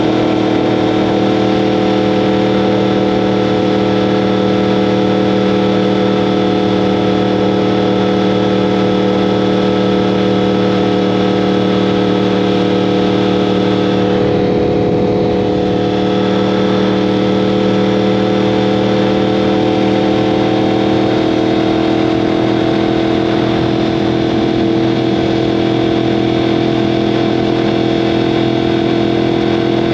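2015 Yamaha R1M's crossplane CP4 inline-four running through an Akrapovic exhaust at a steady, held warm-up idle, the revs kept up by a Race Tools warm-up device. The note is even, and the pitch drifts slightly upward in the last third.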